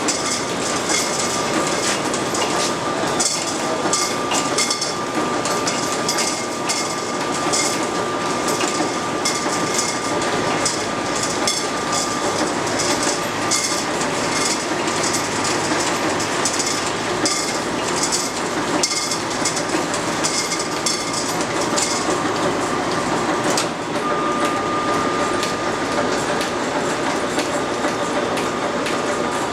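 Early-1900s belt-driven line-shaft machinery running: a lathe and shaper powered from an overhead line shaft through flat belts. It makes a steady mechanical clatter with repeated sharp clicks and a thin steady whine that fades and returns.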